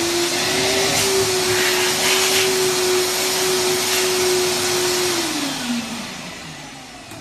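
YILI YLW77 35L wet-and-dry vacuum cleaner running at full speed with a steady motor whine over the rush of air, then switched off about five seconds in, its motor spinning down with a falling whine and fading.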